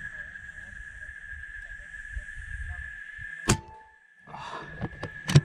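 A single sharp shot from a scoped hunting rifle about three and a half seconds in, with a short ring after it; two louder sharp clicks follow near the end. A steady high-pitched whine runs underneath.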